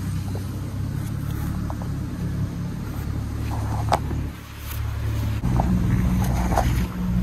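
Boat motor running steadily with a low rumble. It drops away for a moment about four and a half seconds in, then runs harder. There is a sharp knock about four seconds in.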